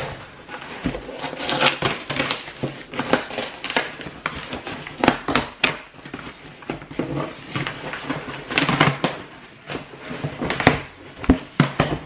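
Paper and cardboard packaging being torn open and handled: irregular rustling, tearing and crinkling with sharp crackles.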